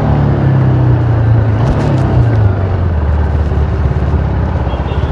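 TVS Apache RR310's single-cylinder engine running through its stock exhaust while riding. The engine note drops to a lower pitch about two and a half seconds in, then holds steady.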